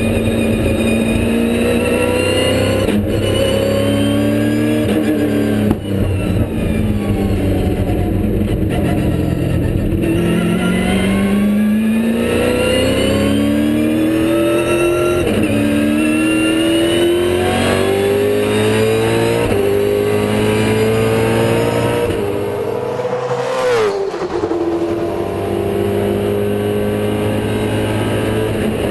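Holden Commodore V8 Supercar's V8 engine at speed on track, heard on board: the revs climb and dip again and again as the sequential gearbox is shifted. A long climb ends in a sharp drop in revs about 23 seconds in, then the engine holds steady.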